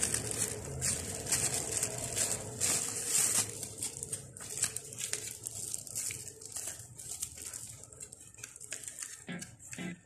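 Plastic packaging wrap crinkling and rustling as hard plastic door-handle covers are handled, dense for the first few seconds and then thinner, with light clicks of plastic parts knocking together.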